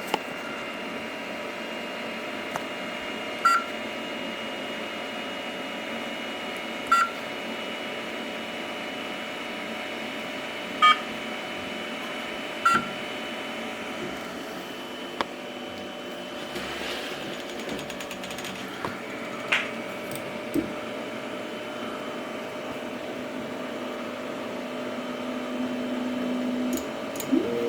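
Creality CR-10 Max 3D printer just powered on: its cooling fans run steadily, with four short beeps in the first thirteen seconds. From about fifteen seconds in, stepper motors add a whine at a few steady pitches, which grows louder near the end.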